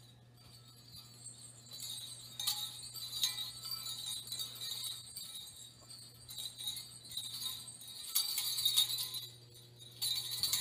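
Small jingle bells jingling in uneven bursts with short pauses, in step with someone walking in an elf costume, over a low steady hum.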